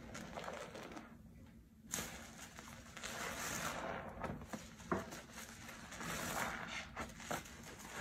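A soapy sponge squeezed and swished in a sink of foamy water: irregular wet squelching and sloshing, with a sharper wet slap about five seconds in.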